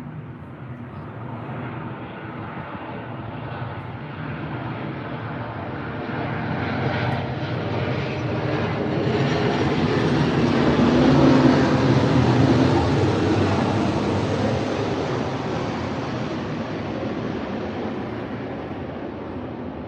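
An airplane flying over, its engine drone growing louder to a peak a little past halfway, then slowly fading away.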